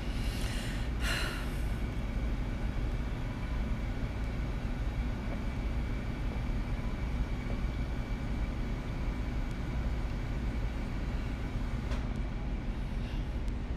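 Steady low rumble of a car driving along, engine and road noise, with a brief rustle in the first two seconds.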